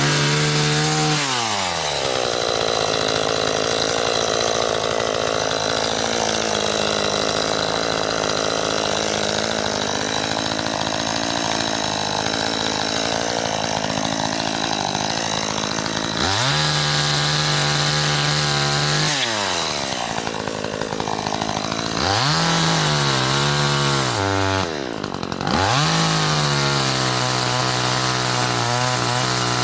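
Gasoline chainsaw cutting through a branch. The engine bogs down under load through a long cut and revs back up about halfway through, then dips and climbs twice more as the chain bites and frees.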